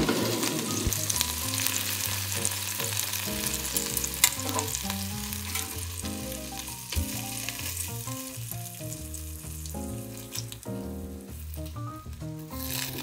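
A thud as the air fryer basket is pulled out, then bacon-wrapped shrimp sizzling in the hot basket, the hiss thinning out over the seconds, with a few sharp clicks of tongs as the shrimp are turned. Background music plays underneath.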